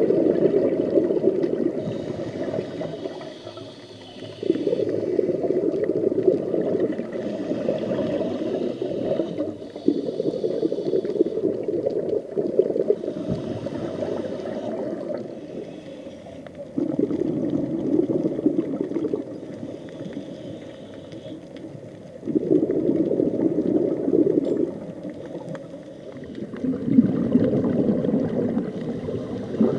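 Scuba diver breathing through a regulator, heard underwater: a low rush of exhaled bubbles every four to five seconds, about six times, with a fainter hiss of inhaling in between.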